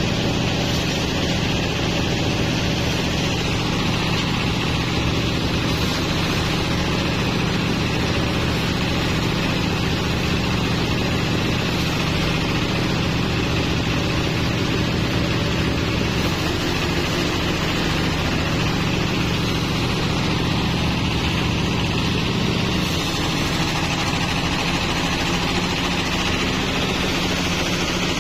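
Engine-driven rice threshing machine running steadily while sheaves of rice are fed into its drum.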